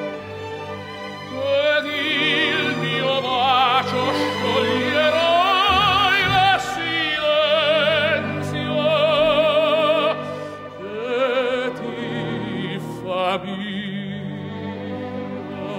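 Background music: operatic singing with a wide vibrato on long held notes over an orchestral accompaniment. The voice comes in about a second and a half in and drops out near the end, leaving the accompaniment.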